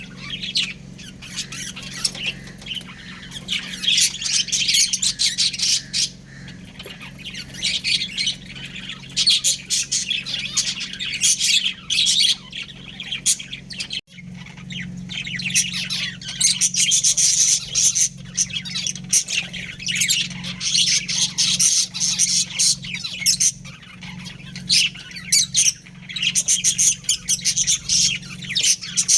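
Pet budgerigars chirping and chattering, many rapid high calls overlapping without pause, over a steady low hum. The sound breaks off for an instant about halfway through, then carries on the same.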